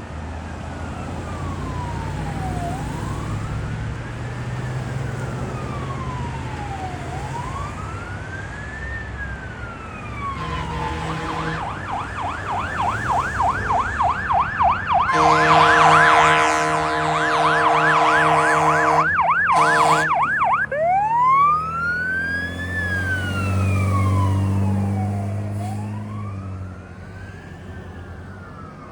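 Fire engine's electronic siren on a slow rising-and-falling wail, switching about ten seconds in to a fast yelp with long horn blasts over it, then back to the wail. It is loudest in the middle as the engine passes. A low diesel engine rumble is heard under the siren as it goes by.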